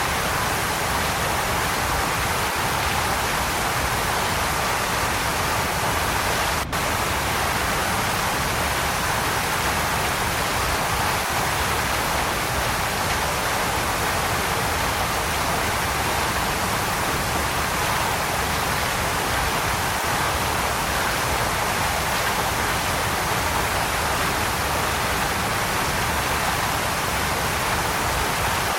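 Waterfall: a steady, even rush of falling water, with a momentary dropout about seven seconds in.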